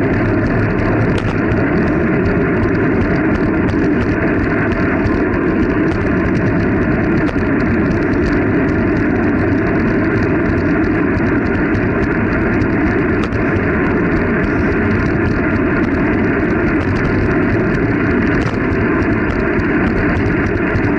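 Steady wind rush and road noise on the microphone of a camera riding along on a bicycle at speed, muffled above the low and middle range, with a few light knocks from bumps.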